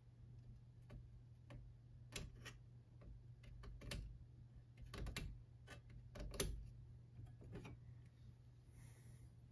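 Light, irregular clicks and taps of small hand tools handled against a wooden patch in a door jamb, about a dozen in all and loudest in the middle, over a faint steady low hum.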